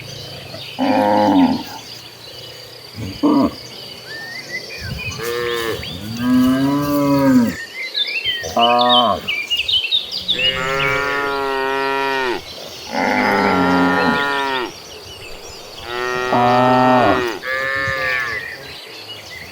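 Cattle in a herd mooing repeatedly, about ten calls from different animals, short ones at first and longer drawn-out moos of one to two seconds in the second half. Birds chirp faintly in the background.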